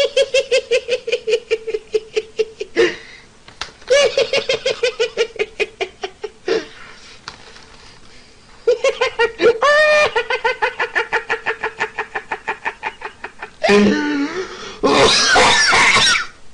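A man's high-pitched, helpless laughter: long runs of rapid staccato pulses, about eight a second, broken by short breaths, ending in a louder, rougher burst near the end.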